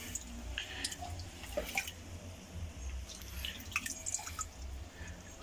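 Small irregular drips and trickles of pond water falling from a wet cupped hand holding a just-caught fish, over a low steady rumble.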